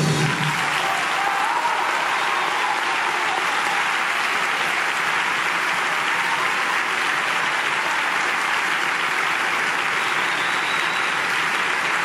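Steady, sustained applause, an even wash of clapping that neither builds nor fades.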